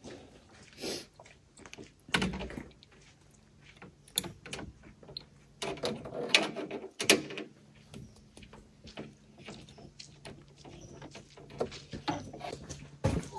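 Irregular clicks, knocks and rattles of solar-panel cable and its connectors being worked with a hand tool, loudest in a cluster about two seconds in and again around six to seven seconds.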